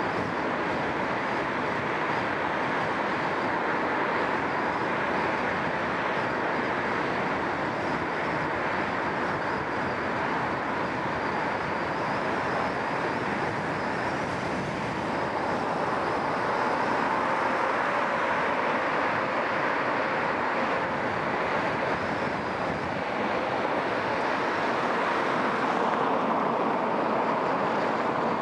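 Steady tyre and road noise of a car driving along a multi-lane city road, picked up by a microphone mounted on the car, with the sound of surrounding traffic.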